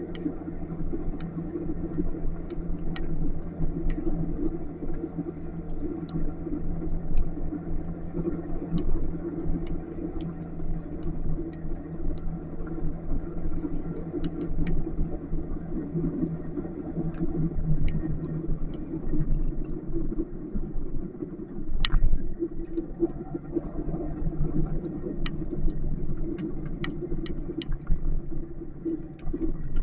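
Motorcycle engine running while riding in rain, a steady hum over low road and wind rumble, with scattered sharp taps of raindrops. The engine note eases off past the middle, and a single louder knock comes about two-thirds of the way in.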